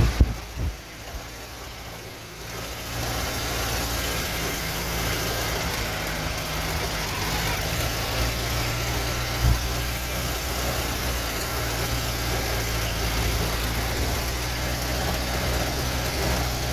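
A vehicle's engine running as it drives along a rough dirt track, with road and wind noise over it. It is quieter for the first few seconds, then runs steadily louder, with a single knock about nine and a half seconds in.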